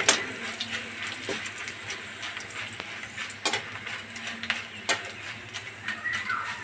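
Metal spatula scraping and clinking against a steel kadhai as dried red chillies and dals are stirred in hot oil, over a light sizzle. The clinks come irregularly, with sharp ones at the very start and about three and a half and five seconds in.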